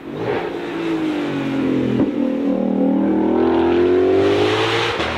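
A high-performance car engine accelerating hard. Its pitch sags at first, there is a sharp crack about two seconds in, then the pitch climbs steadily as the revs rise. The engine sound cuts off abruptly near the end.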